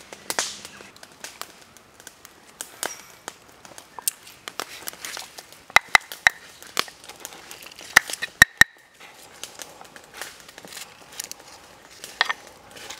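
Dry crinkling and rustling with many scattered sharp clicks and taps, the loudest a few clicks about six seconds in and again about eight seconds in.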